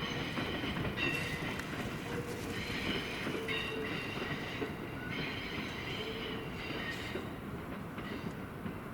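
Electric commuter train running past on the tracks, a steady rumble with short high-pitched squeals from the wheels coming and going, easing off slightly toward the end.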